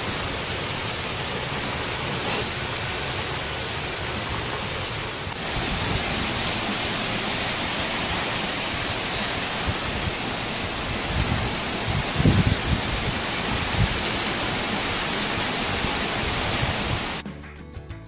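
Heavy rain pouring down in a thunderstorm, a dense steady hiss that grows louder about five seconds in. A few low thumps come in the middle, and the rain cuts off shortly before the end.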